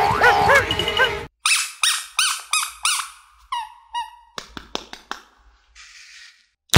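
A run of bouncing, chirpy cartoon sound effects in the first second, then a rubber squeeze toy squeaking about five times in quick succession as it is squeezed, followed by scattered short clicks and squeaks as it is handled.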